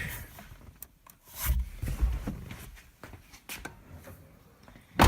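Scattered handling noises: a dull thump about one and a half seconds in, a few light clicks, and a sharper click or knock near the end.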